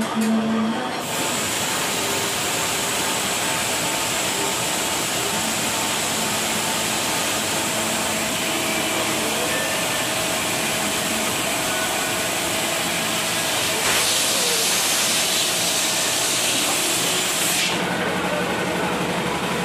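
Heavy drilling machine cutting into a steel housing with a large core cutter: a steady hissing cut with a faint steady whine, giving way to a lower motor hum near the end.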